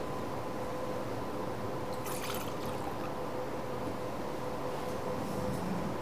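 Liquid poured in short trickles from a small cruet into a chalice, at the preparation of the gifts, twice, over a steady faint hum.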